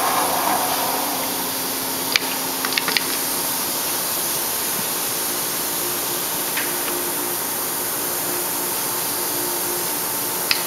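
Gun drilling machine standing under power with its motors and pumps running, a steady hum and hiss. A louder whirring dies away in the first second. Sharp clicks of the control panel's pushbuttons and switches come about two seconds in, a quick few just before three seconds, and once more near the end.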